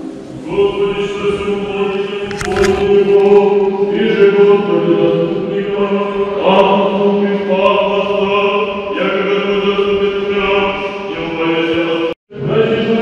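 A choir chanting slowly in long held chords, the voices moving together from one sustained chord to the next. The sound drops out for a moment near the end and then resumes.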